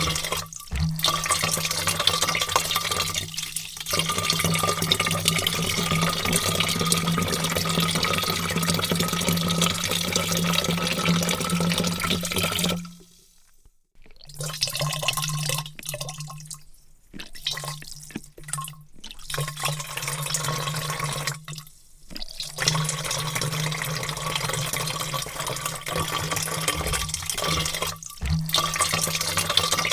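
Water pouring steadily into a large vat: a continuous rush of splashing with a steady low hum underneath. About halfway through, the flow cuts out for a second, then comes back with several brief breaks before running on steadily.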